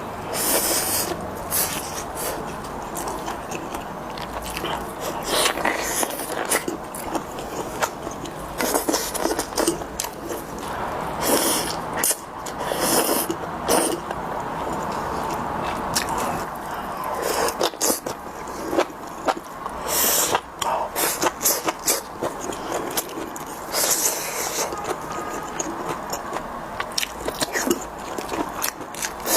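Close-miked eating: chewing and biting with irregular crunches, and scraping.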